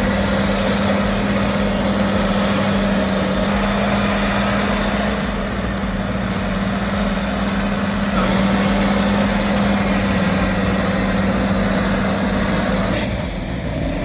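Bulldozer's diesel engine running steadily with a constant low drone. The sound changes abruptly about 13 seconds in.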